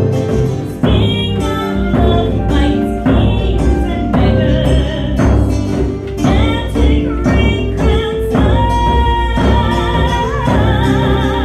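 Live Celtic folk song: a woman sings a slow melody with held, wavering notes over acoustic guitar and other instruments.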